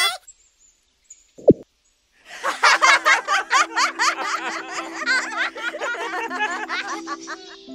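A short pop-like sound effect about 1.5 seconds in, then a burst of quick, high giggling laughter, rapid and choppy, that fades near the end over low held music notes.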